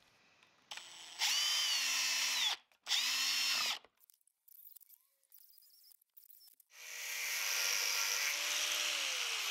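Power drill boring into a brass plate in two short runs, each spinning up and winding down. About two-thirds of the way through, an angle grinder starts and runs steadily, cutting metal, its pitch beginning to fall near the end.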